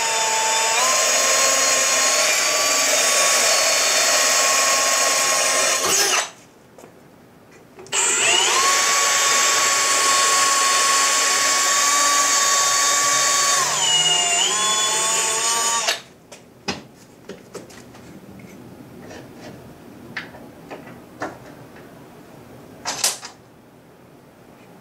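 Cordless drill running in two long bursts as it bores a pilot hole into an aluminum bung on an aluminum radiator pipe, its steady whine dipping in pitch as the bit bites. After the second burst come light clicks and taps and a short scraping noise near the end.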